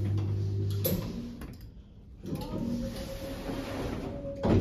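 Lift car's automatic sliding doors closing. A steady hum cuts off with a click about a second in. Then the door motor hums on one steady note for about two seconds, and the doors meet with a knock near the end.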